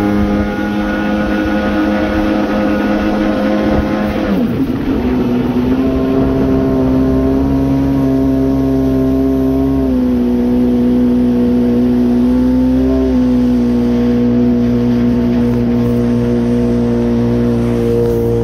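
Yamaha WaveRunner III 650 personal watercraft's two-stroke twin engine running under way at a steady pitch. The pitch dips briefly about four seconds in, then holds a little higher, and eases slightly around ten seconds in.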